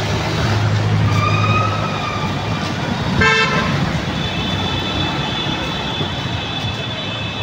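Busy city street traffic: motor vehicle engines running, with a short horn toot about three seconds in and a thin, steady high-pitched tone held through the last few seconds.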